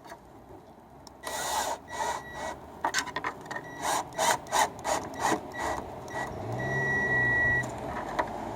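Roof rack clamp parts being worked by hand, rubbing and scraping in a run of short strokes at about two a second, with a steady high tone for about a second near the end.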